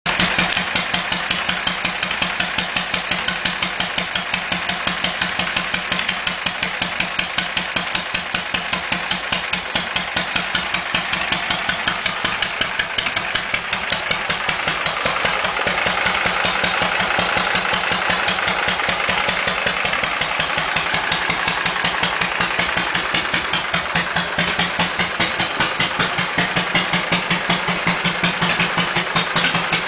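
1978 Harley-Davidson Shovelhead V-twin running steadily at idle with a regular pulsing beat, the engine brought back to life after six years boxed up.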